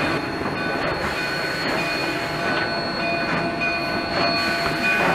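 Narrow-gauge train with a rotary snow plow, its tender and a steam locomotive rolling slowly past: a steady rumble of the cars on the rails, with thin, steady high-pitched wheel or brake squeals.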